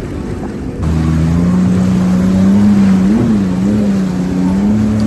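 Jet ski engine running at speed over a rush of water and wind. Its drone comes in louder about a second in, climbs slowly in pitch, and briefly revs up and back about three seconds in.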